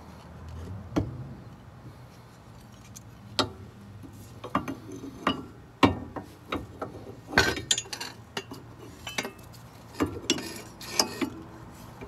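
A metal sway-bar mounting bracket being handled and fitted against the rear sway bar's bushing and the car's underbody: irregular sharp clinks and knocks of metal on metal, a dozen or so, the loudest about six and seven and a half seconds in.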